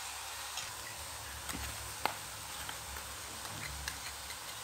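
A pan of grated coconut cooking on the stove with a faint steady hiss, and a few light clicks and ticks as powdered sugar is tipped into it.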